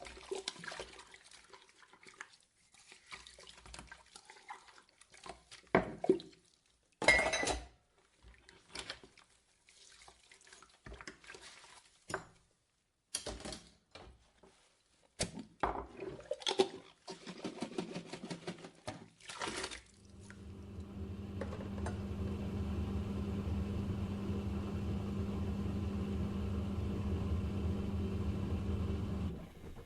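Dishwasher cycle: irregular clinks of dishes and splashes of water for about twenty seconds. Then the machine's pump starts with a steady low hum and a constant spray of water, and stops shortly before the end.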